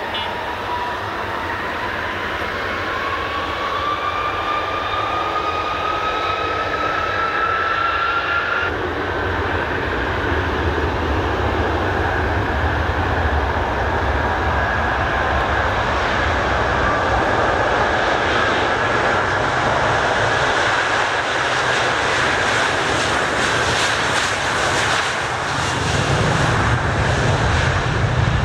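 Jet airliner's engines spooling up for takeoff: a whine climbing in pitch over the first eight seconds or so, then a broad rush of engine noise that grows steadily louder as the aircraft accelerates down the runway.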